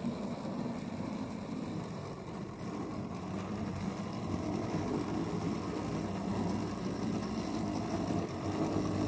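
009 narrow-gauge model train of about thirty four-wheel wagons rolling round a tight curve of track, a steady rumble of small metal wheels on rail with the running of the locomotive's motor, as the train hauls a heavy load.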